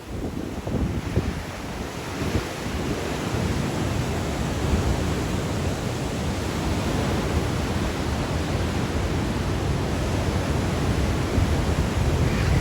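Sea waves breaking and washing on the shore in strong wind, with gusts rumbling on the microphone. The surf noise builds after the first couple of seconds and stays steady.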